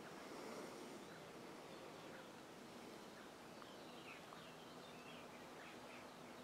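Near silence: faint outdoor ambience with a few faint, short bird chirps in the second half, and a faint low steady hum from about halfway through.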